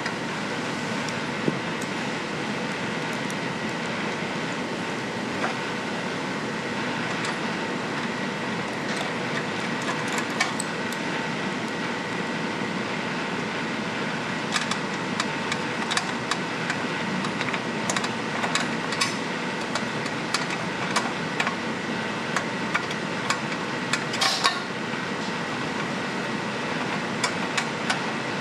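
Irregular clicks and light metal taps of hand tools and bolts while a blower housing is bolted onto a small engine, over a steady background hum. The clicks grow busier from about a third of the way in.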